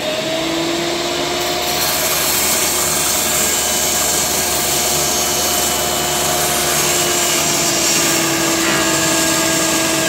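Makita MLT100 table saw motor running at full speed with a steady whine. It shuts off near the end.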